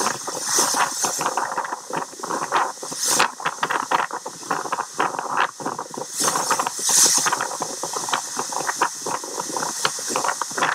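Strong wind heard through a phone camera's microphone: a rushing hiss that swells in gusts, with a dense crackle of short clicks running through it.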